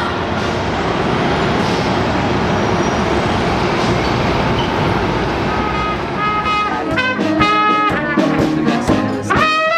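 Steady street noise, then about six seconds in brass instruments start playing a tune of short, repeated notes.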